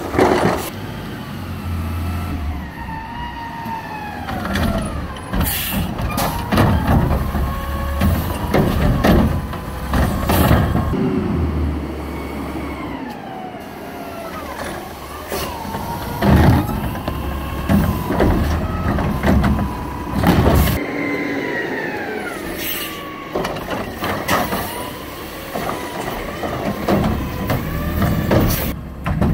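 Peterbilt front-loader garbage truck with a McNeilus body at work: its diesel engine revs up and down to drive the hydraulics, with a whine that rises and falls in pitch. Sharp air-brake hisses and clanks of carts being gripped and set down cut in every few seconds.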